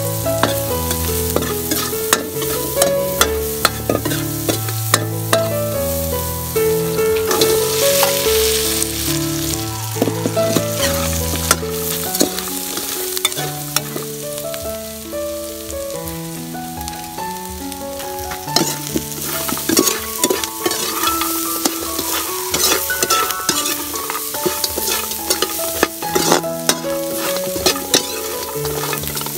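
Pork skin frying with garlic and chili in a steel wok, stirred with a metal spatula that scrapes and clicks against the pan as the fat sizzles. Instrumental background music plays underneath.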